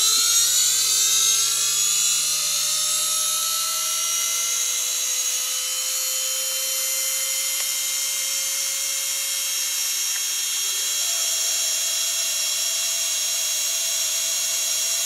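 Washing machine motor powered from a 240 V DC battery and drive board, spinning up from switch-on: a rising whine that levels off after about five seconds into a steady high whine, with a slight change in tone about eleven seconds in. Running quite quietly.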